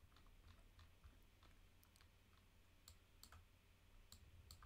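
Near silence with faint, scattered clicks of a computer mouse operated while navigating a map.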